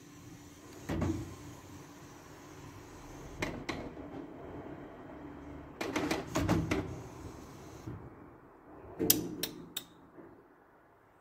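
Canon Pixma G3411 inkjet printer's internal mechanism clunking and clicking in several separate groups during its start-up routine, which ends in error E15b, black cartridge not recognized.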